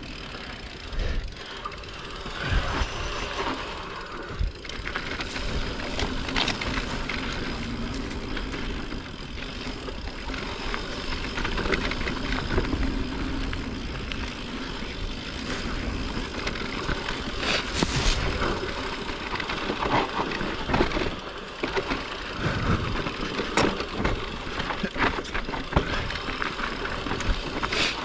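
A mountain bike ridden along a dirt trail: a steady rushing noise from the ride, with frequent sharp knocks and rattles from the bike over rough ground.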